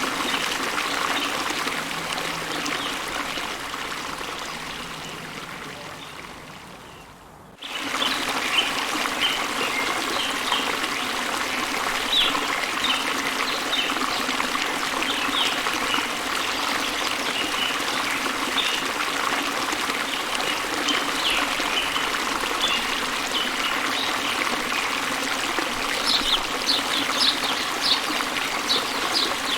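A running stream trickling steadily, with small birds chirping over it. It fades down over several seconds, then cuts abruptly back in about eight seconds in, with the chirping growing busier near the end.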